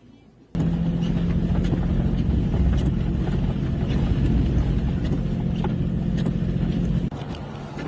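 A vehicle engine running with a steady low drone and rushing noise, starting abruptly about half a second in and dropping in level shortly before the end.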